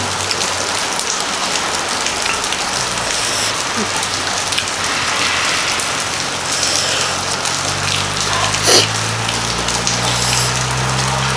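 Steady rain falling, a dense even hiss with fine drips through it. A sharp click comes a little under 9 s in, and a low hum joins after about 8 s.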